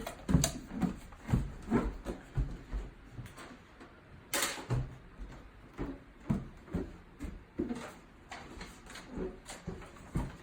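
Scattered light knocks and thumps, with one louder, brief rustling burst about four seconds in.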